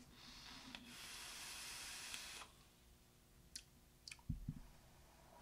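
Drag on a vape with a rebuildable dripping atomizer: a faint hiss of air drawn through the dripper for about two seconds, then a few faint clicks and soft low thumps.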